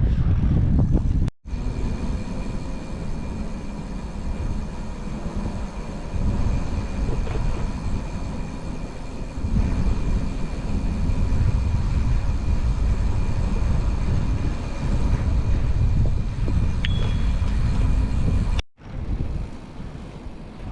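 Wind and road noise from a bike ride: a steady low rumble, broken by two brief dropouts, one about a second in and one near the end.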